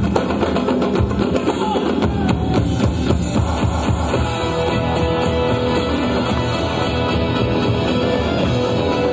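Loud music playing continuously, with a beat.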